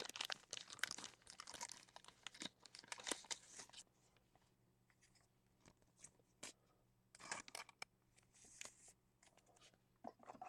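Faint crinkling and tearing of trading-card pack wrappers and packaging being handled, in bursts over the first few seconds and again briefly later, with a few light clicks of cards being moved.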